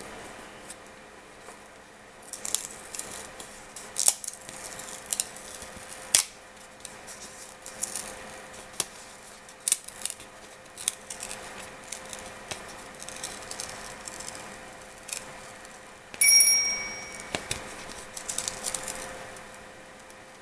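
Thin plastic acetate sheet being slowly peeled off a Bondo prosthetic transfer on transfer paper: scattered soft crackles and rustles, with a faint steady hum underneath. About sixteen seconds in, a short metallic ping rings out, the loudest sound.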